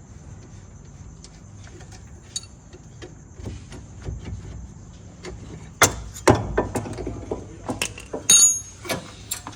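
Metal hand tools clanking on metal: a run of sharp knocks and clinks starting about six seconds in, with one ringing metallic clang near the end.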